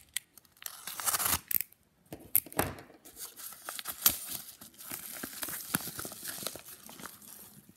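A small plastic mailing package being torn open by hand, its wrapping ripping and crinkling in irregular bursts with sharp clicks.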